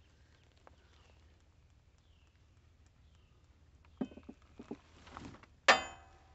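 Steel lawn mower blade knocking against the mower deck and spindle as it is fitted back on: a few light knocks, then one loud metallic clank that rings briefly near the end.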